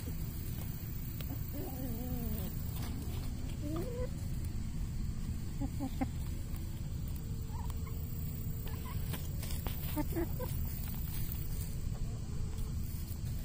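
Chickens clucking and calling softly as they forage: a few short calls, with one longer wavering call about two seconds in. A steady low rumble runs underneath.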